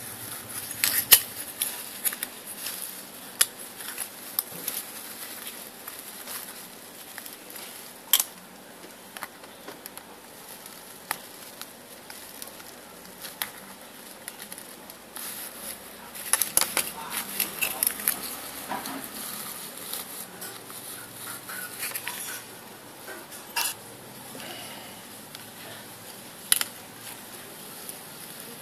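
Tin can being handled and worked with a screwdriver: scattered light metallic clicks, taps and scrapes, busiest about halfway through.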